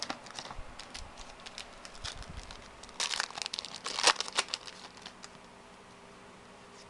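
Wrapper of a trading-card pack crinkling and tearing as it is handled and opened: scattered light crackles, then a dense cluster of sharp crinkles about three to four and a half seconds in.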